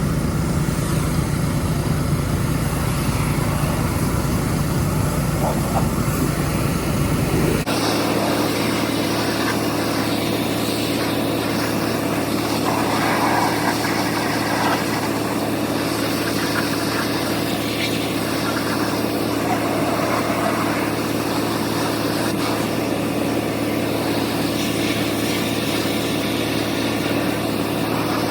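Pressure washer running steadily, a small engine's hum under the hiss of the water spray. About eight seconds in the sound changes abruptly, from a deep hum to a higher steady hum with more spray hiss.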